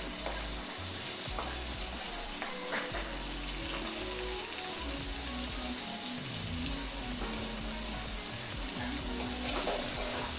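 Chopped tomatoes sizzling as they fry in hot groundnut oil with onions and ginger garlic paste, being stirred, with a few light clicks of the spoon.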